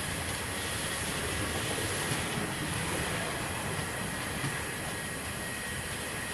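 Passenger train running at speed, heard from on board: a steady rumble of wheels and coaches with a faint, steady high whine over it.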